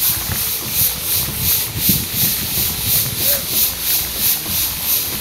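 Paddlewheel pond aerator running, its paddles churning the water in a steady hiss that pulses about three times a second.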